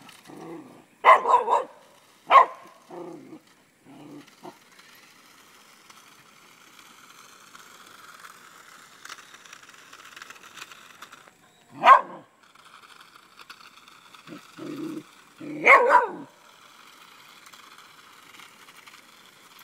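Small black-and-tan dog barking at a toy remote-controlled car in short, sharp bursts: several barks in the first few seconds, one about twelve seconds in and a couple more around sixteen seconds, with quieter, lower yelps between.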